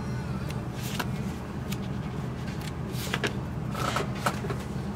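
Paper pages of a booklet being flipped and handled, giving short rustles and light clicks at irregular moments, over a steady low hum.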